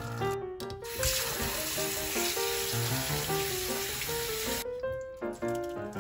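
Water running into a mesh strainer of glass noodles in a stainless steel sink, starting about a second in and cutting off shortly before the end, over background music.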